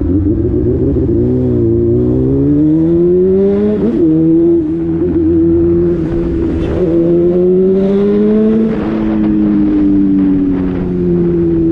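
A motor vehicle's engine running loudly, its pitch rising and falling slowly several times as the revs change.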